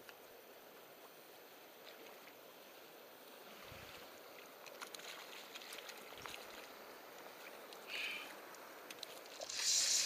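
Shallow river water running steadily, with a few faint clicks and knocks of handling. A louder hissing rush comes in just before the end.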